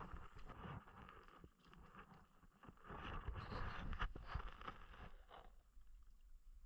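Gill net being hauled by hand out of the river into a wooden boat: faint splashing and rustling of wet net, with a few light knocks against the hull, a little louder midway and dying away near the end.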